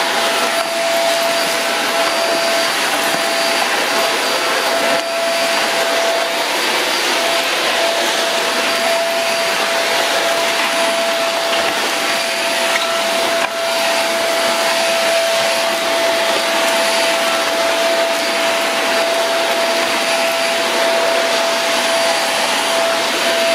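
iWoly cyclonic stick vacuum running steadily on a hard floor: a continuous rush of air with a high whine held on one note, fairly quiet for a vacuum, with a couple of brief dips as the floor head is moved.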